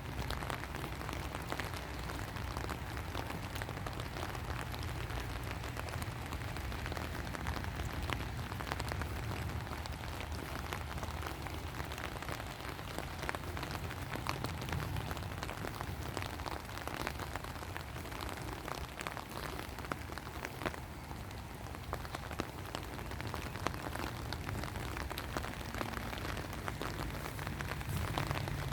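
Steady rain falling, with many individual drops tapping close by over a low rumble.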